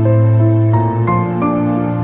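Background music: a calm, slow new-age piece of sustained notes over a steady bass.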